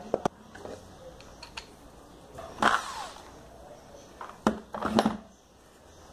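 Workshop handling sounds: a few sharp knocks and clatters of wooden pieces and tools being set down and picked up on a wooden workbench, the loudest about halfway through and again near the end.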